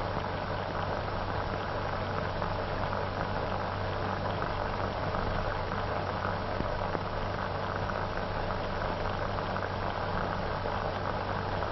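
Steady hiss and crackle of an old film soundtrack, with a low hum underneath and no other sound.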